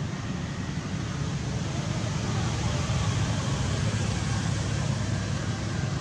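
Steady low rumbling background noise that grows slightly louder about two seconds in.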